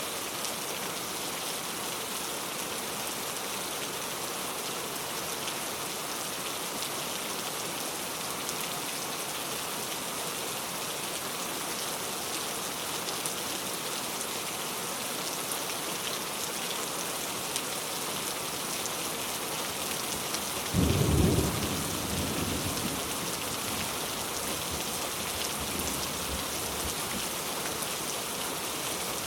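Heavy rain falling steadily in a forest. About twenty seconds in, a sudden loud thunderclap breaks in and rumbles away over several seconds.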